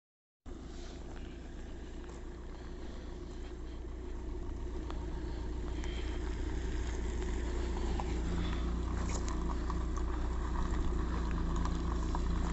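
A vehicle engine running steadily with a low hum that grows gradually louder.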